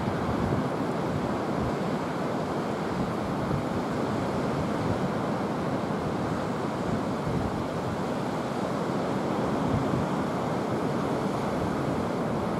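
Rough sea surf breaking on a rocky shore, a steady continuous wash of waves, with wind buffeting the microphone.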